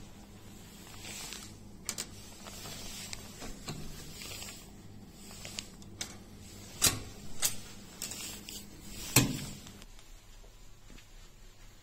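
Hotel room door with an electronic keycard lock being unlocked and opened: a few sharp clicks as the card is tapped, the lock releases and the lever handle is pressed, then a louder click with a low thump about nine seconds in as the latch lets go and the door swings open. A low steady hum runs underneath.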